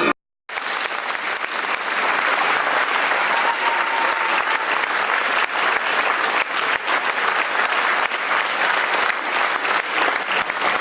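A large audience applauding steadily with dense clapping, starting abruptly just after a brief gap.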